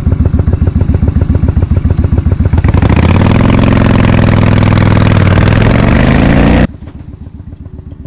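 Honda Shadow motorcycle's V-twin engine idling with an even, loping chug, then revving up as the bike pulls away, its pitch rising and then holding. The engine sound drops away suddenly near the end.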